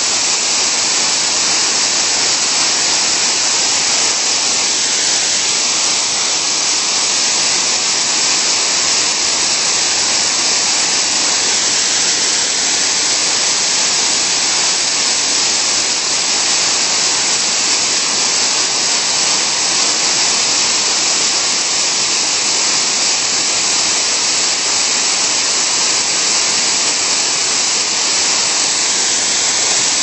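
Small river waterfall in flood after a typhoon, its swollen muddy torrent pouring over the drop into a churning plunge pool. It makes a loud, steady rush of falling water that does not change.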